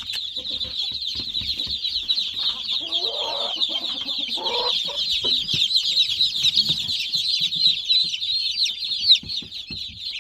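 Day-old meat chicks and Muscovy ducklings peeping nonstop, many high chirps overlapping into a constant chorus. A lower, longer call sounds twice, about three and four and a half seconds in.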